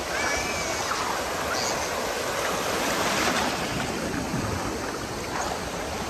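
Small waves breaking and shallow seawater washing and rushing around, a steady surf noise.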